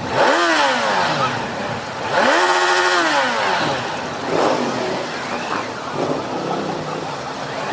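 Motorcycle engines revved in quick throttle blips, the pitch shooting up and then falling away, about four times; the loudest come near the start and about two seconds in.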